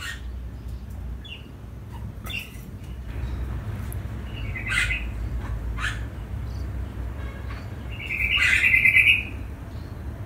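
Bird chirping: a few short, scattered calls, then a louder trilled call of about a second near the end, over a low steady rumble.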